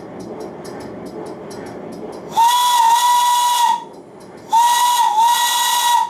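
Model Stirling Single locomotive running with steady exhaust beats, then its whistle blown twice, each blast lasting about a second and a half, the second starting about half a second after the first ends.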